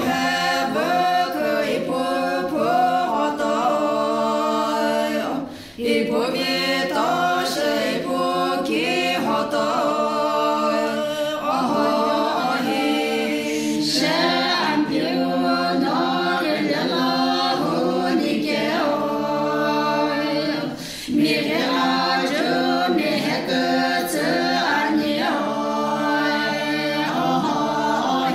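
A group of women singing together without accompaniment, a cappella choir style, with brief breaths between phrases about 5 seconds in and again about 21 seconds in.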